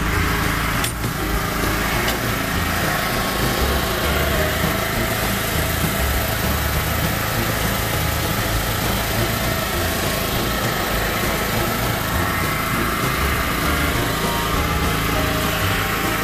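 Small portable generator engine running steadily inside a home-built aluminium enclosure, pretty quiet, with one sharp metal click about a second in as a door latch is opened.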